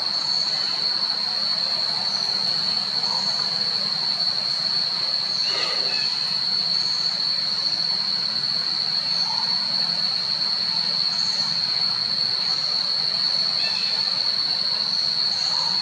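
Steady, high-pitched drone of insects over an outdoor hiss, with a few faint short chirps above it.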